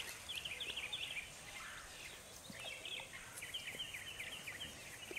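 Faint birdsong: rapid runs of short, high chirps, one at the start and another from about two and a half seconds in.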